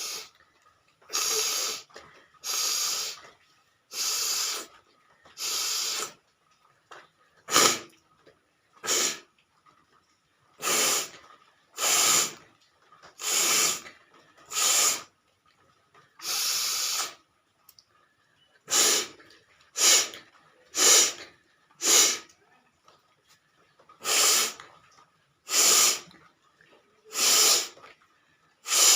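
A person blowing air hard out through the nose again and again: about nineteen hissing blasts, roughly one every second or two, the first few longer and the later ones short and sharp.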